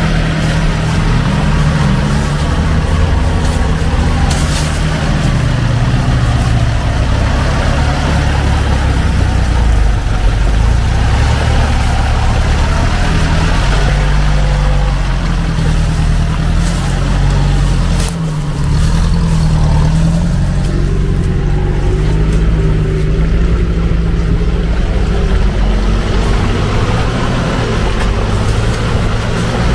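UAZ off-roaders' engines running under load and revving up and down as the trucks crawl through deep mud and water. About 18 seconds in there is a brief drop, and then another engine takes over.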